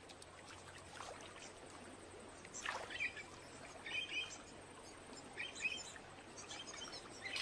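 Faint natural background with a few short, scattered bird chirps.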